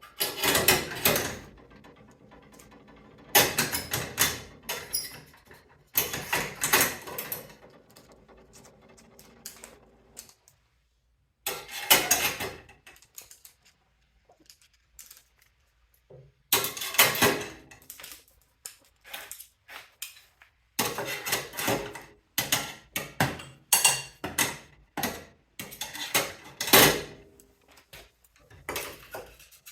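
Screwdrivers clinking and rattling against a laser-cut stainless steel sheet-metal rack as they are slotted in one after another. It is an irregular metallic clatter in clusters, with a few quiet pauses of a second or more.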